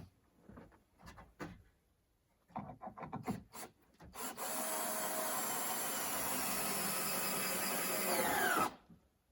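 A few wooden knocks as boards are handled, then a power saw cuts through wood for about four seconds, its motor winding down in pitch as it stops.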